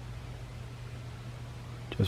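Steady low hum under a faint even hiss, with no distinct event.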